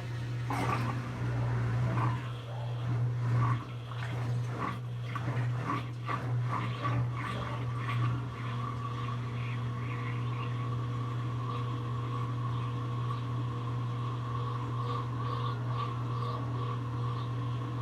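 Brastemp 17 kg washing machine running with a steady low hum. For the first eight seconds or so, irregular knocks and water sloshing come with it; after that a steady motor whine settles in.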